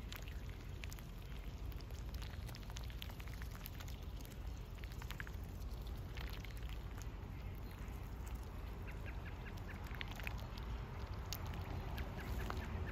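Khaki Campbell duck dabbling its bill in a muddy puddle: a rapid, irregular run of small wet clicks and slurps, over a steady low rumble.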